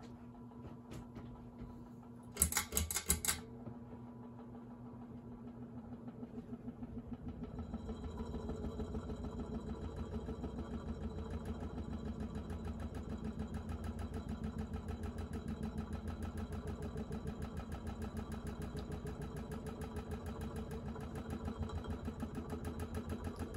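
20-inch Monte Carlo Mini ceiling fan speeding up to high. A brief rattle comes about two and a half seconds in, then the motor builds over several seconds to a steady hum with a loud buzz and fast, even clicking. The buzz, shaking and clicking come from the fan being hung loosely for testing.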